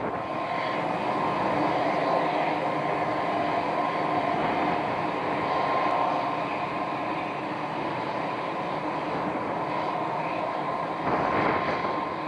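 Royal Navy Merlin helicopter running on the ground: a steady turbine whine with a constant high tone over a dense rushing noise. It briefly surges louder about eleven seconds in.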